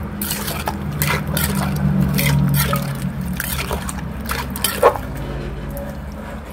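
Metal ladle stirring and scooping a juicy spicy salad in a large mortar: repeated clinks and scrapes of the spoon against the bowl with wet squelching of the mixture, the sharpest knock about five seconds in.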